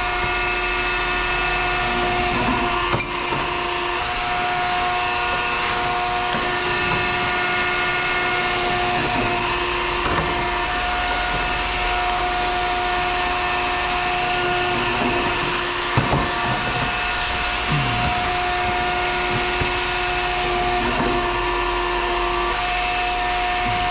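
Power metal-cutting tool running with a steady whine while scrap copper is chopped up, with a few knocks and clunks from the metal.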